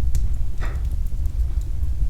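Wood fire burning in a fireplace: a steady low rumble of the flames with scattered crackles, the loudest pop about a third of the way in.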